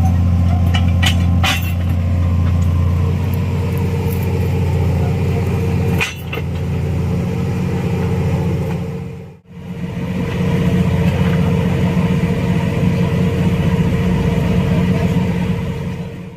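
Excavator's diesel engine running steadily with a deep hum, with a few sharp metallic clicks in the first couple of seconds and another about six seconds in.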